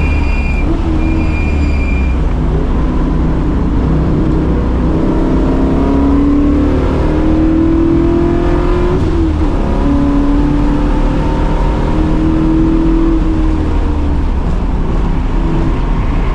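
Fourth-generation Pontiac Firebird's V8 under hard acceleration on track: the engine pitch climbs, drops at a shift about nine seconds in, climbs again and falls off near the end, over steady road and wind noise. A high steady tone sounds twice in the first two seconds.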